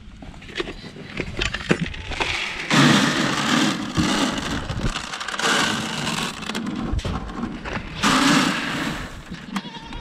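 Feed pellets poured from a plastic bucket into a plastic feed trough: a loud rattling pour in three spells, the longest about three seconds in. A few light knocks come before the pour.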